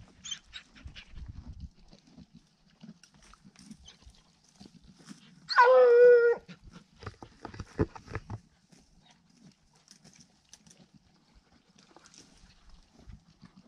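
A trailing hound gives one long bawl, about halfway through, a clear wavering howl lasting under a second. Scattered low knocks of the mule's hooves on rocky ground come before and after it.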